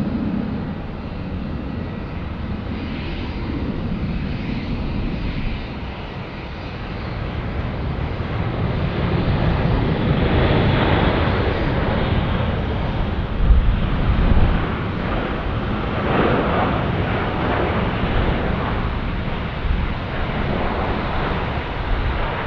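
Turkish Airlines Boeing 777-300ER landing and rolling out, its GE90 jet engines running. The noise swells several seconds in as the engines spool up for reverse thrust to slow the aircraft on the runway. It is loudest through the middle, with a brief thump about halfway, then eases off a little.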